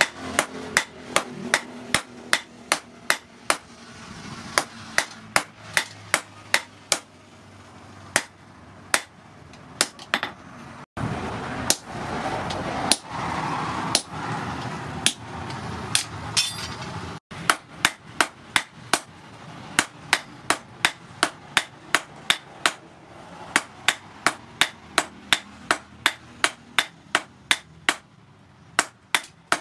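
Hammer striking red-hot rebar on a steel post anvil in a quick steady rhythm of about two to three sharp metallic blows a second. In the middle stretch the blows thin out over a steady rushing noise, and the sound breaks off abruptly twice.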